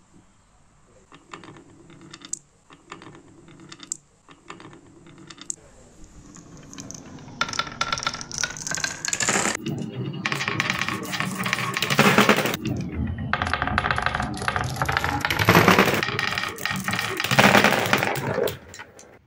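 Many glass marbles rolling and clattering down a wooden marble-run slope and dropping into a plastic building-block truck. A few separate clicks come first, then from about seven seconds in a dense, loud rattle of many marbles that stops abruptly near the end.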